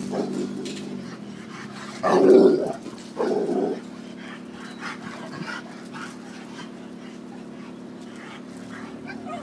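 Pit bull barking twice, about two seconds in, each bark lasting about half a second, with quieter sounds of the dog moving about and a steady low hum underneath.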